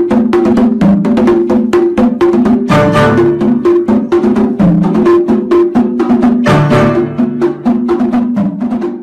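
Background music with a fast, clicking percussive beat, several strokes a second, over a simple melody.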